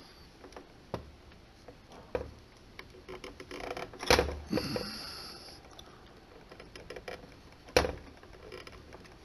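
Small metal clicks and scrapes of steel forceps working at the twist lock under a Willcox & Gibbs automatic tension, trying to catch its slots and turn a lock that is stiff to turn. The clicks are scattered, with the loudest cluster and a short scrape around four to five seconds in and one sharp click near the end.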